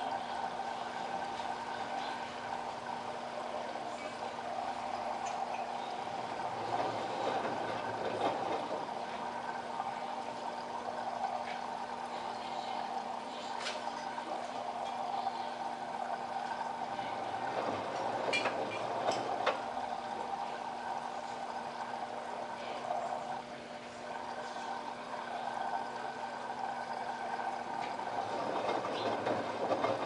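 LG WD12596 front-loading washing machine running a rinse, its motor humming steadily while water sloshes in the tumbling drum, swelling about every ten seconds.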